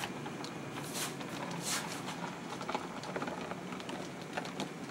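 HO scale model freight train, a string of covered hopper cars, rolling along the track with a steady running noise and scattered sharp clicks from the wheels.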